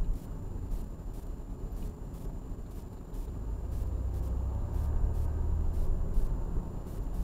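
Car engine and road rumble inside the cabin as the car pulls away from a stop sign and picks up speed, the low rumble growing louder about halfway through. Faint regular ticks, about one and a half a second, run under it.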